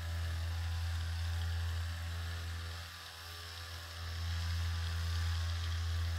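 A steady low motor hum that fades a little about three seconds in and then swells again, over a light hiss.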